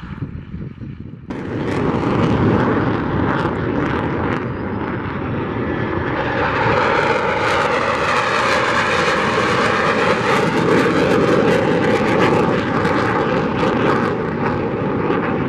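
Fighter jet engines: a T-38 Talon's roar on its takeoff roll, then after a sudden jump in loudness an F-16 Fighting Falcon's jet engine as it climbs out past. The roar sweeps in pitch as the jet goes by.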